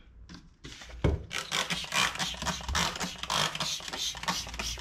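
Trigger spray bottle squirting cleaner onto a dirty motorcycle axle: a rapid run of short spray hisses, about four a second, starting about a second in.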